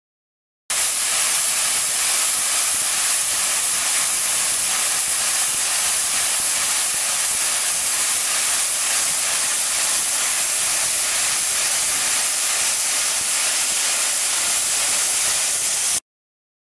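Steady, loud hiss of cleaning nozzles jetting a spray onto heat exchanger fins. It starts about a second in and cuts off suddenly near the end.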